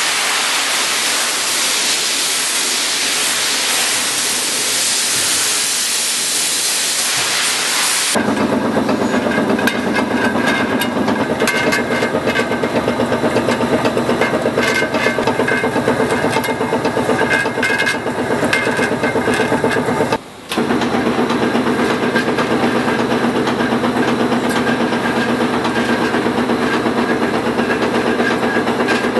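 A steady hiss for about eight seconds. Then the sound switches abruptly to a Startrite horizontal metal band saw running: a steady machine hum with a fast, even rattle. About two-thirds of the way through, the sound cuts out for a moment and comes back.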